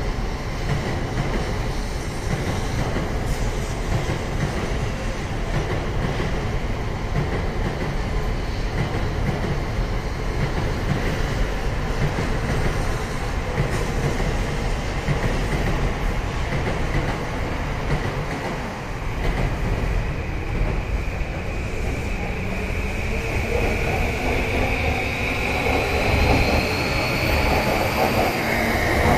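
Electric train running past the platform, wheels rumbling and clattering on the rails. In the last several seconds a motor whine climbs steadily in pitch and grows louder, as a train picks up speed.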